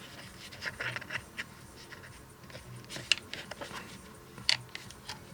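Light scraping and a scatter of small clicks from hands handling a thin plastic lamp housing.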